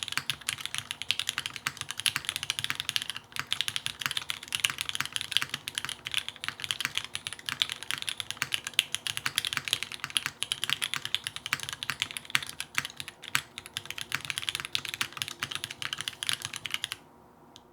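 Fast, continuous typing on two KFE custom mechanical keyboards at once, one with lubed Cherry MX Hyperglide Black linear switches and the other with retooled MX Black switches, both on polycarbonate plates with GMK keycaps. The keystrokes stop abruptly near the end.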